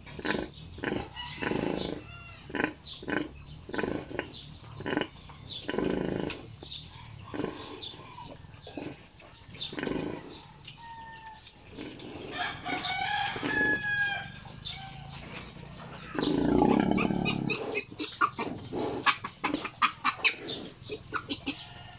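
Nursing sow grunting in a steady rhythm, about two short grunts a second, as her piglets suckle. A rooster crows once about twelve seconds in, and a louder, longer stretch of grunting comes about sixteen seconds in.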